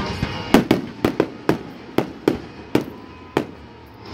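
Aerial firework shells bursting overhead: about nine sharp bangs in quick, irregular succession.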